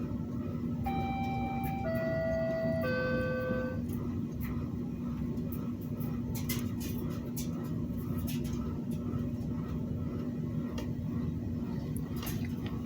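Steady electrical hum and noise, with three held electronic tones stepping down in pitch about a second in, each lasting about a second, then a few faint clicks.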